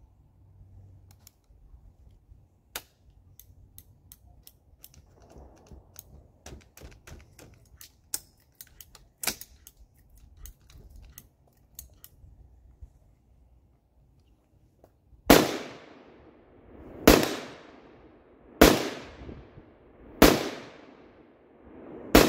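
Five rifle shots from an AR-15 in 5.56 mm, about a second and a half apart, each followed by a fading echo. Before them, for about twelve seconds, a scatter of light clicks and ticks.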